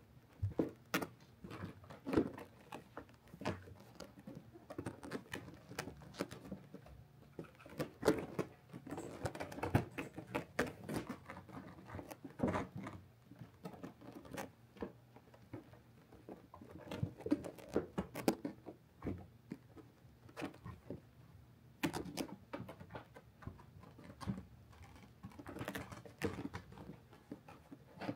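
Kittens' paws and claws scrabbling on a felt cat cave: irregular soft taps, patters and scratches as they clamber about.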